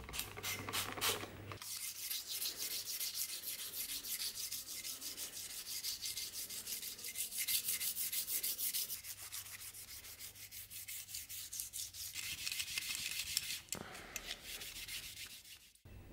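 Wet abrasive pad rubbing over a freshly painted steel dagger scabbard in quick back-and-forth strokes, with a short lull near the end. The rubbing dulls the new paint's shine to make it look aged.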